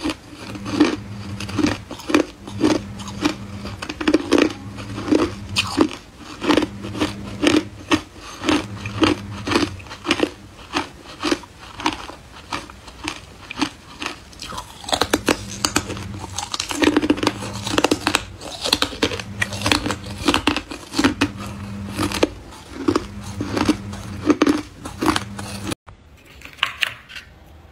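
Hard, clear ice being bitten and chewed close to the mouth: sharp crisp crunches about twice a second, one after another. The crunching stops suddenly near the end, leaving much quieter sound.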